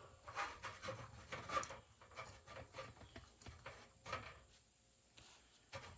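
Light scattered rubbing and clicking from a backpacking stove burner being handled and twisted onto a gas canister, small quick taps for about four seconds, then nearly quiet.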